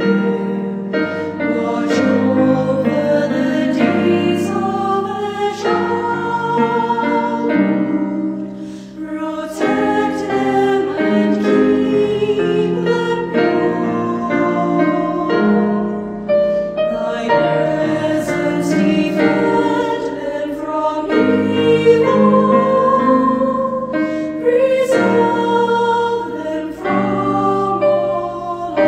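Mixed choir of men's and women's voices singing a hymn in harmony, with a brief breath between phrases about eight seconds in.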